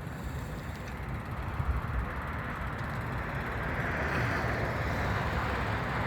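Steady outdoor background noise: a low rumble with a hiss that grows louder after about three seconds.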